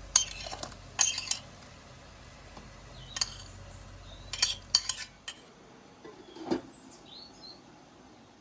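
Dishes and utensils clinking in short clusters, several sharp ringing knocks a second or so apart, then a duller knock about six and a half seconds in. A few short bird-like chirps follow near the end.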